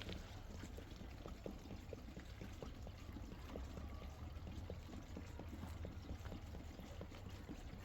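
Rain falling: a steady wash with many irregular drip ticks, several a second, over a low rumble.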